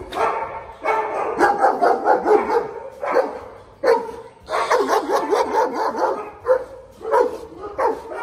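Many shelter dogs barking from their kennels at once, loud, short barks overlapping one after another with hardly a pause.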